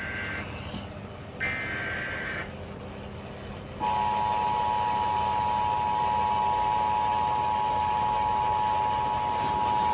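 Emergency Alert System alert starting: the warbling digital screech of the header data ends just after the start and sounds again for about a second, a second and a half in. About four seconds in, the steady two-tone attention signal starts and holds.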